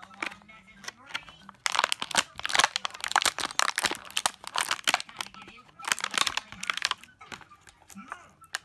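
Toy packaging being handled and torn open by hand: dense crinkling, crunching and cracking from about two seconds in until about seven seconds in.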